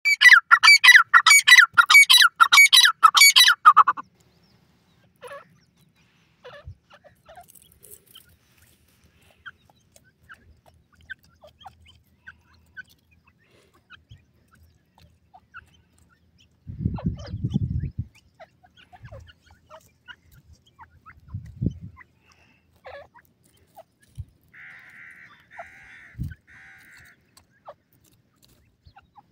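Grey francolin (teetar) calling: a loud, rapid run of repeated harsh notes, about three a second, that stops after about four seconds. The rest is mostly quiet, with faint small ticks and a short low rumble about halfway through.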